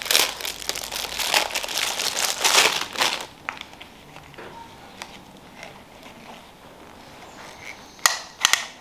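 Packaging crinkling and rustling as an item is unwrapped by hand: dense for about the first three seconds, then only a few light ticks and rustles, and a short, louder burst of crinkling near the end.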